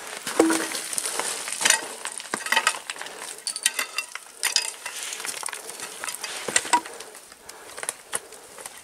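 Crampon points and an ice axe scraping and clicking on loose, broken rock and scree during a scramble. The steps crunch irregularly, with small stones shifting underfoot.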